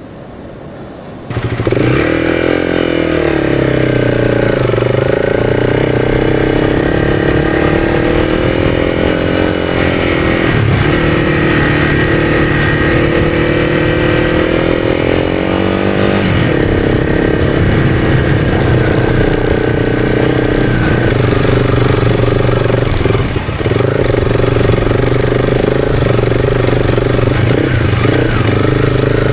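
Honda CRF300's single-cylinder engine comes in loud about a second in and runs hard under load through deep sand, its pitch rising and falling with the throttle.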